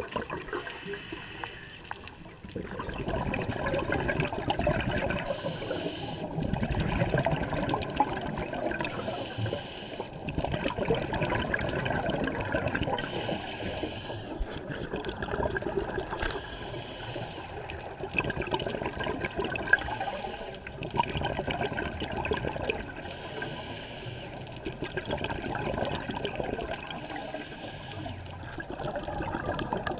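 Scuba diver's exhaled bubbles and regulator breathing, heard muffled through an underwater camera housing: a bubbling rush that comes in surges a few seconds apart with short lulls between.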